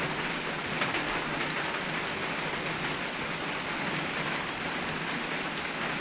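Steady rain falling on palm trees and leafy garden vegetation.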